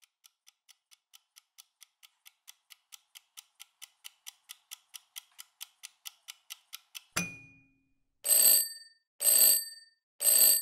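Kitchen countdown timer ticking about four or five times a second and growing louder, then a sharp click about seven seconds in as it reaches zero, followed by three loud alarm rings about a second apart, each about half a second long.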